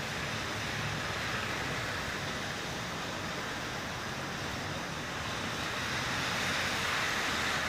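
Steady outdoor noise hiss with no distinct events, growing slightly louder near the end.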